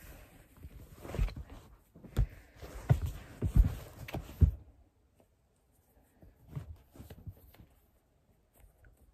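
Handling noise from a reborn doll being dressed on a bed: fabric rustling and a run of soft, dull thumps and bumps, thickest between about one and four and a half seconds in, then only faint rustling.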